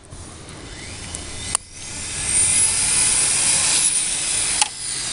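Radio-controlled car speeding past: a high motor whine that rises in pitch and swells about two seconds in, then holds loud.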